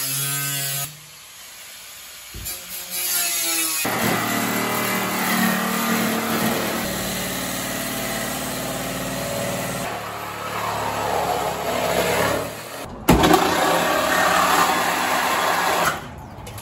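Power tools cutting through a car's steel body: a cut-off wheel grinding metal with a steady whine, in several long stretches with a quieter pause early on. A sharp knock comes just after 13 seconds in.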